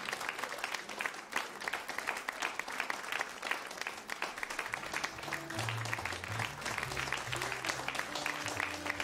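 Audience applauding. About five seconds in, music with a low stepping bass line starts under the applause.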